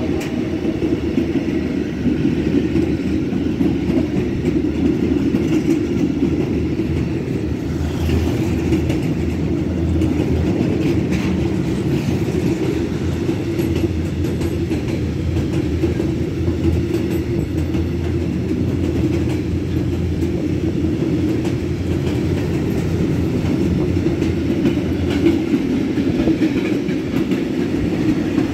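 A freight train rolling along the track: a loud, steady rumble of wagons with faint wheel clatter mixed in.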